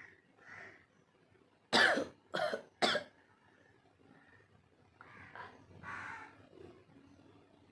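A woman coughing three times in quick succession about two seconds in, short sharp bursts while her nose is being tickled to bring on a sneeze. Quieter breathy sounds follow around five and six seconds in.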